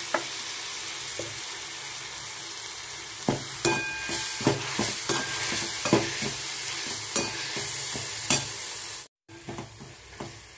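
Soaked moong dal sizzling in hot oil in a wok-shaped metal pan, with a perforated steel spatula scraping and knocking against the pan as it is stirred, from about three seconds in. The sound cuts out briefly near the end, and the sizzle after it is quieter.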